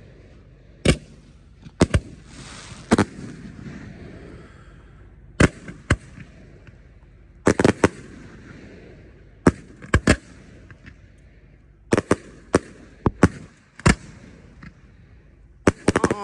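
Aerial fireworks bursting in the sky with sharp, loud bangs (reports) about every second, some in quick pairs, with hissing between bangs and a rapid cluster of bangs near the end.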